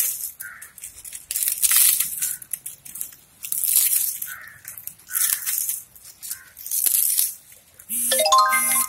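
Dry coconut palm frond leaves crackling and rustling as they are torn and broken up by hand, in bursts about a second apart. A short run of rising tones sounds near the end.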